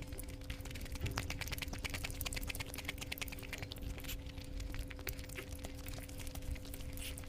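Close-miked eating sounds of egg curry with basmati rice: a rapid run of small wet clicks from chewing, thickest in the first half, over a steady faint hum.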